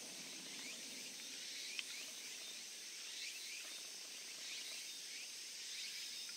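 Quiet outdoor ambience: a steady high insect drone with many short repeated chirps, and one faint click about two seconds in.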